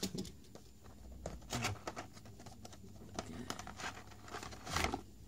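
Hands opening a cardboard figure box: card flaps scraping and sliding and plastic packaging rustling, with scattered clicks and a louder scrape near the end.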